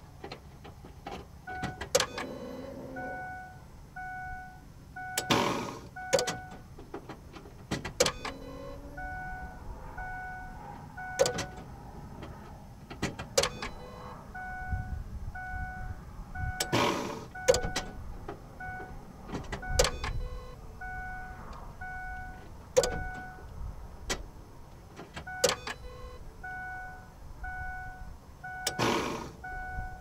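Ford E-series van's warning chime beeping in repeated runs, with loud clunks and short whirring bursts about every two to four seconds, as the ignition is switched on and off to prime the fuel line after a fuel filter change.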